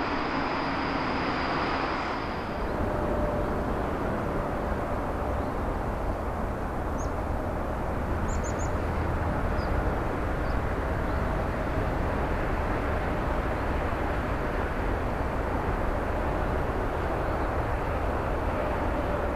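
Jet airliner engine noise: a steady rumble and rush with a faint steady hum, changing in character about two seconds in. A few faint high chirps sound around the middle.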